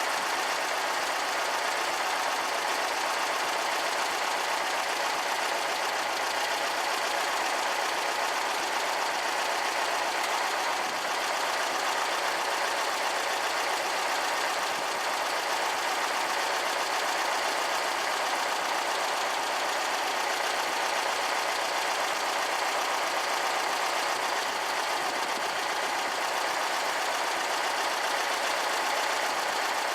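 Air-cooled VW flat-four engine of a Karmann Ghia idling steadily.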